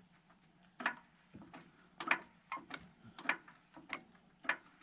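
Harbor Freight Badland 3-ton off-road floor jack being pumped by its handle to lift a trailer: a short click with each stroke, a little under two a second.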